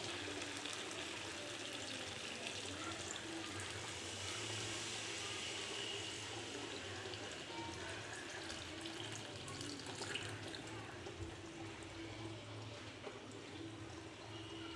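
Water being poured into a pan of chicken and potato curry, a steady splashing into the gravy.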